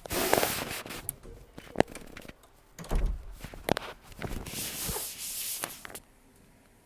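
Clothes being handled: fabric rustling, with several sharp clicks and a low knock about three seconds in, then quiet room tone near the end.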